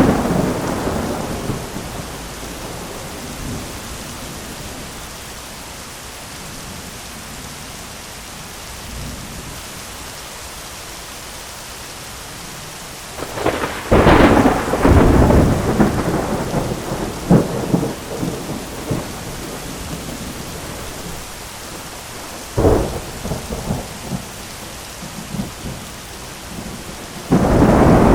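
Steady heavy rain falling on an umbrella, with thunder. A rumble fades away at the start, a long peal with several sharp cracks comes about halfway through, a shorter clap follows a few seconds later, and another peal builds near the end.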